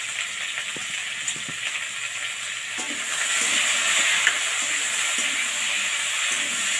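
Potato pieces frying in mustard oil in a metal kadai. The steady sizzle grows louder about three seconds in as a metal spatula stirs them, with light scrapes and clicks against the pan.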